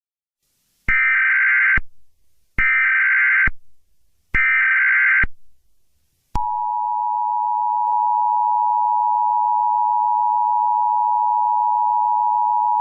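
Emergency Alert System tones: three roughly one-second bursts of SAME header data, a rapid two-tone warble, with short gaps between them. About six seconds in comes the steady two-tone attention signal, which holds for about six seconds and cuts off suddenly. The header bursts encode the alert, and the attention tone announces an emergency message.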